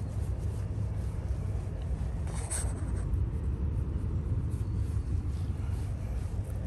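A hand stroking a brown tabby cat's fur close to the microphone, with soft rustling and one brief louder rustle about two and a half seconds in, over a steady low rumble.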